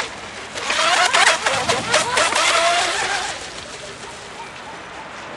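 Electric RC speedboat with a brushless motor running on the water, its motor whine wavering with the throttle over spray and hull noise; it is loud from about a second in and dies down after about three seconds.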